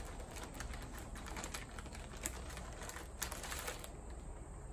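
Plastic Twizzlers candy wrapper crinkling as it is handled, a faint run of small crackles and clicks that grows busier near the end.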